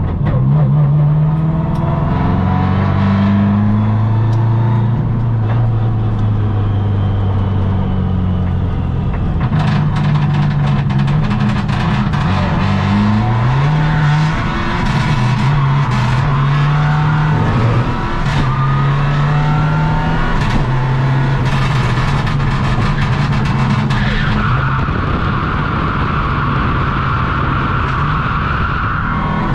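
Subaru WRX STI rally car's turbocharged flat-four engine heard from inside the cabin, revving up and dropping in pitch at each gear change. From about ten seconds in, gravel clicks against the car. A steady tyre squeal joins near the end.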